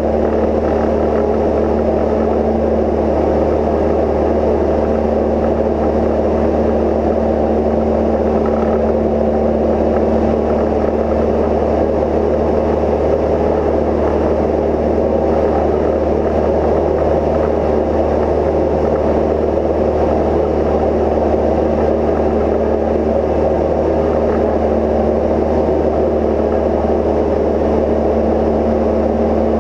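Steady, loud cabin drone of a Cozy Mk IV in cruise flight: the engine and pusher propeller running at constant power, with a steady hum and low rumble that do not change.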